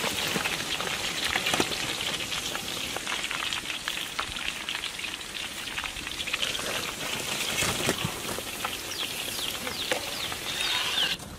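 Chicken fingers deep-frying in hot oil in a large iron kadai: a steady, dense sizzle full of small crackling pops. It cuts off abruptly near the end.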